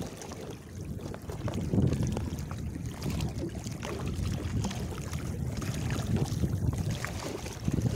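Wind buffeting the microphone over the rush and splash of water against a board skimming across choppy sea.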